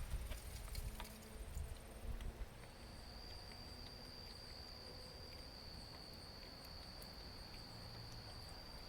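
Insect trilling: one steady, high-pitched, unbroken tone that starts about three seconds in and holds. Before it come faint low thumps and a few clicks.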